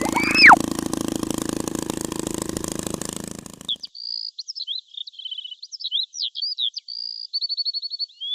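A steady noisy hum with a sliding whistle rising and falling near the start, cutting off suddenly about three and a half seconds in. It gives way to a rapid run of high electronic-sounding chirps and trills like a bird call sound effect.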